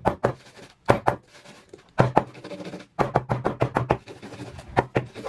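Irregular series of sharp taps and knocks on hard kitchenware, coming in quick clusters about two seconds in and again between three and four seconds in.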